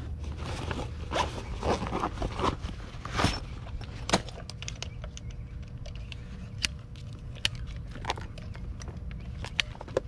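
Rustling and scraping as a clamp meter and its test leads are pulled out of a soft tool case, followed by scattered light clicks as the leads and meter are handled.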